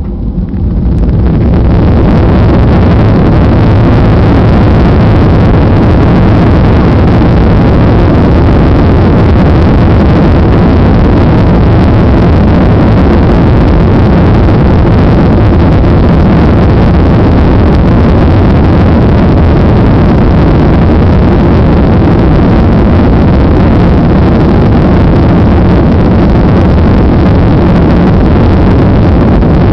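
Boeing 737 jet engines at takeoff power: a loud, steady noise that swells over the first two seconds, then holds flat near the limit of the recording.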